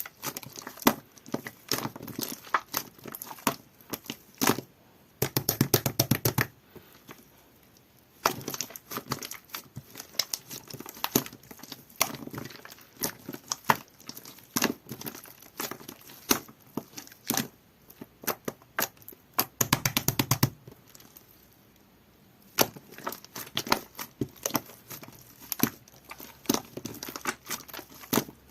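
Jelly-textured slime being squished and pressed, giving irregular sharp wet clicks and pops, with two spells of fast crackling about five seconds in and again about twenty seconds in.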